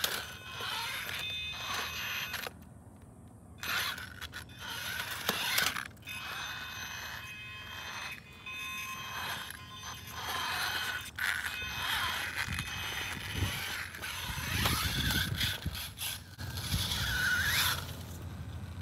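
Axial Ryft RC rock crawler's electric motor and geared drivetrain whining in stop-start bursts as it crawls over rocks, with scrapes and knocks from the rig against the rock.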